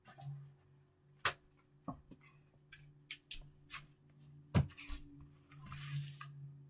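A person moving about and handling things on a carpeted floor: scattered sharp knocks and clicks, the loudest about four and a half seconds in, then a short rustle as hands brush across the carpet near the end. A low steady hum runs underneath.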